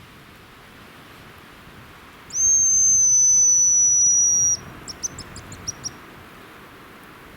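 Hazel grouse call: one long, loud, thin, very high whistle of about two seconds, drifting slightly down, then a quick run of six or seven short high notes, over steady wind noise.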